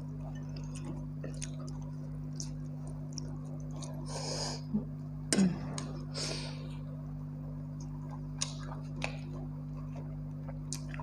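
Close-up eating sounds of a person eating pakhala, rice soaked in water, with her hand: wet rice being mixed, a loud mouthful about five seconds in, then scattered small smacking clicks of chewing. A steady low hum runs underneath.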